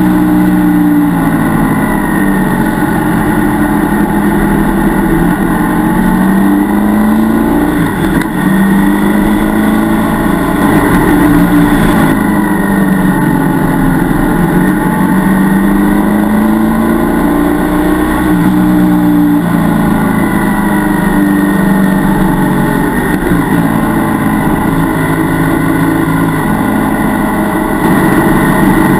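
BMW F 800 GS parallel-twin engine under way, its pitch climbing and dropping back over and over as the revs build and fall.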